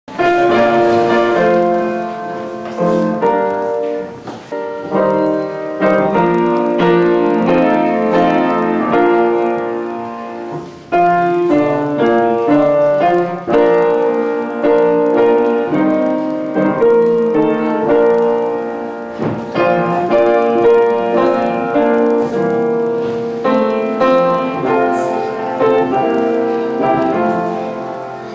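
Upright piano being played, chords under a melody, with a brief break in the playing about eleven seconds in before it picks up again.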